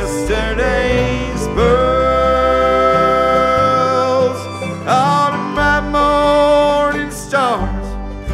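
Live bluegrass band playing an instrumental passage. A lead line holds long notes that slide into pitch, over steady low bass notes.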